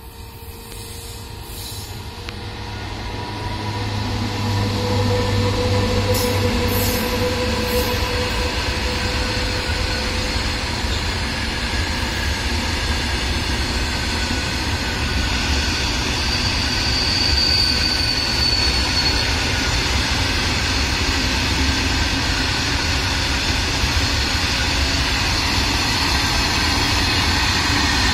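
Twin WAG9 electric locomotives hauling a freight train of BOXN wagons pass at speed. The sound swells over the first few seconds as the locomotives come up with a faint whine, then settles into the steady rumble of wagon wheels rolling over the rails, with a brief high wheel squeal partway through.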